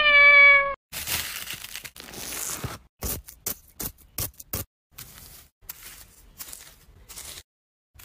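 A cat's single meow, about a second long and falling slightly in pitch, at the start. Then a fork scraping and crunching through ice as it is mashed into slush: a run of rough scrapes and short, sharp crunches.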